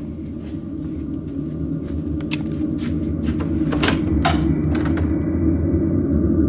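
Hotel room door being opened: a few sharp clicks and knocks from the handle and latch, over a steady low hum that grows gradually louder.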